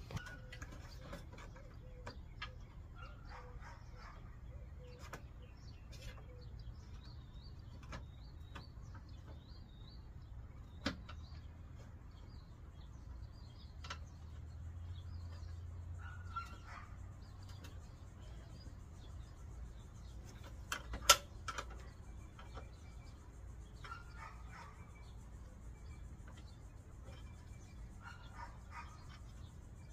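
Scattered light clicks and knocks of a car headlight and its bolts being handled and fitted to the front end, the loudest a quick pair about two-thirds of the way through, over a quiet background with faint bird chirps.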